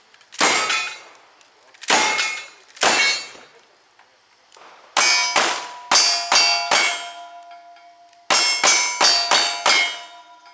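Cowboy action shooting: three lever-action rifle shots about a second apart, then two quick strings of single-action revolver shots. Each shot is followed by the clang of a steel target, and the plates keep ringing after the last strings.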